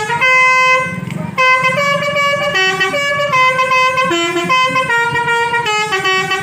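Bus basuri horn playing a tune: loud held notes stepping up and down in pitch one after another, with a short break about a second in.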